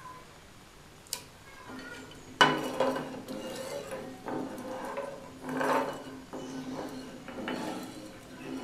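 Perforated steel ladle stirring water in a dark pan, scraping and clinking against the pan in several strokes a second or two apart. A sharp knock about two and a half seconds in is the loudest.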